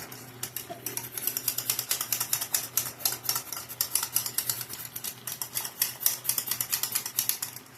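Wire whisk clicking rapidly against a pan, several strokes a second, as butter-and-flour roux and broth are whisked into gravy.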